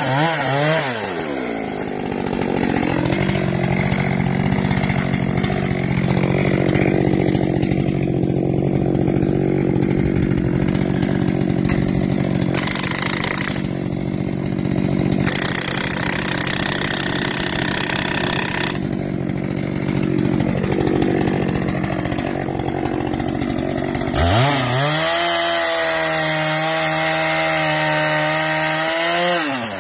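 Chainsaw running at full throttle with its bar buried in the felling cut of a thick tree trunk, cutting steadily. About 24 seconds in, the engine note climbs and holds higher, then drops just before the end.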